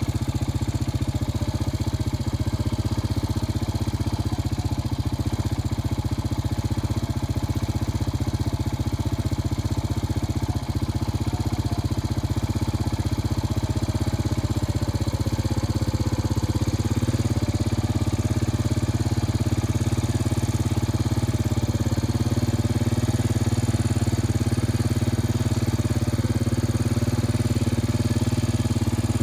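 An engine running steadily at an even, idle-like speed.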